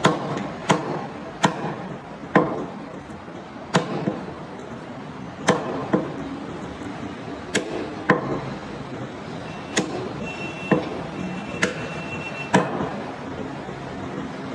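Butcher's cleaver chopping a rack of goat ribs into pieces on a wooden chopping block: about a dozen sharp blows, irregularly spaced roughly a second apart, each cutting through rib bone into the wood.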